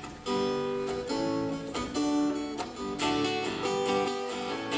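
Acoustic guitars strumming chords, with a new chord struck about every half second, as the instrumental lead-in to a sung hymn.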